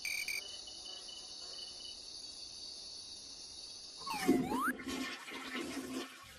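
Steady chirring of crickets as a night-time backdrop, with a few short high chirps at the start. About four seconds in, the crickets stop and a swooping whistle glides down and back up, followed by a louder, busier sound.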